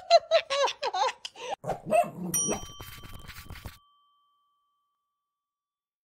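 A sun conure's fast run of high, laughing calls, about five a second, then a single bright chime about two seconds in that rings out.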